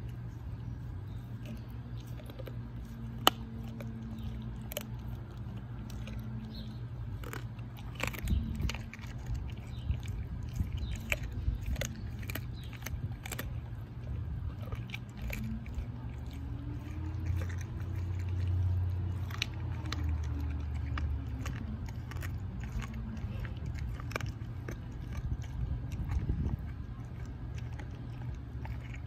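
German shepherd chewing and gnawing a raw bone-in chicken thigh, with irregular sharp clicks and cracks throughout, busiest around eight to thirteen seconds in.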